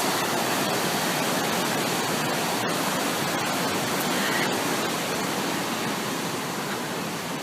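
Steady rushing of water pouring over the falls of the Androscoggin River, an even roar that eases slightly near the end.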